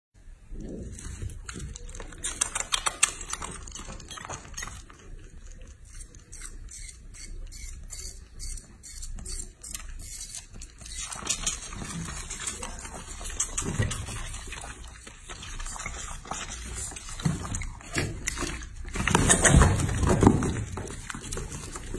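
Piglet sucking milk from a feeding bottle, many quick clicks of sucking, with a louder jostle about nineteen seconds in as the monkey and piglet tussle over the bottle.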